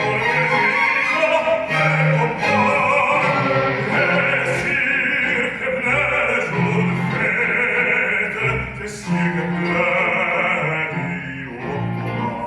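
Classical orchestral music with strings, in an operatic style with a sung line.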